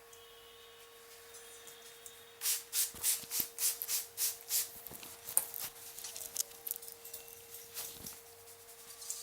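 Hands rubbing briskly over a head during a head massage: a quick run of about eight swishing strokes a couple of seconds in, then softer, irregular rubbing.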